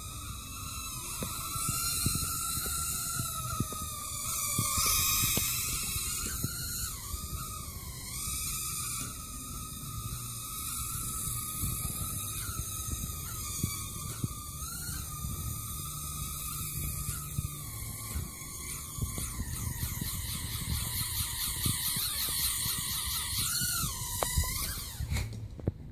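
Nano quadcopter's tiny motors and propellers whining at a high pitch, the pitch wavering up and down as the throttle changes in flight. Near the end the whine rises briefly and then cuts off suddenly.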